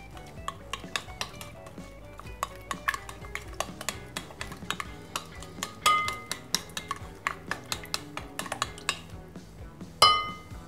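A metal utensil stirring a runny mixture of milk, eggs, sugar and ghee in a glass bowl: quick, irregular clicks and scrapes against the glass, with a couple of brighter ringing clinks about six seconds in and again near the end.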